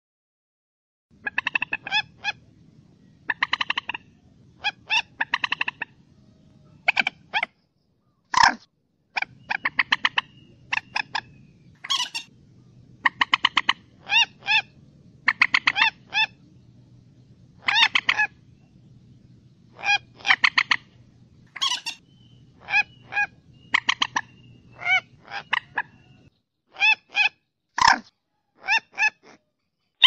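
Common moorhen calling: short bursts of quick repeated call notes, with a pause of a second or so between bursts, going on throughout.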